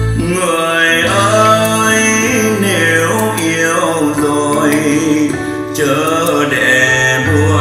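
A song with a singer over an instrumental backing, played through a Pioneer five-piece mini hi-fi system and its three-way bookshelf speakers; the singing comes in just after the start.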